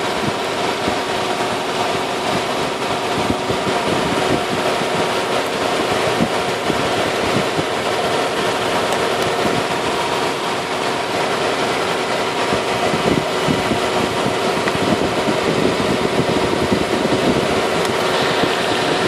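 1995 Nissan pickup truck engine idling steadily, heard close up in the open engine bay.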